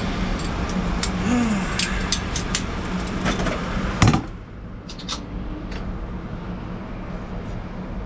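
Steady machinery hum with a constant low drone and scattered light metallic clicks. About four seconds in, one loud knock, after which the hum is quieter and a few more tool clicks follow.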